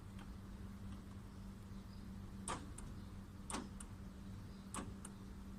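Door lock actuator clicking as it is pulsed with battery power: three sharp clicks about a second apart, each followed by a fainter click, over a faint steady hum.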